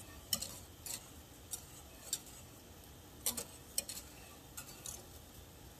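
Wire balloon whisk clicking against the sides of a stainless steel saucepan while whisking butter into boiling water: light, irregular metal ticks, about one or two a second.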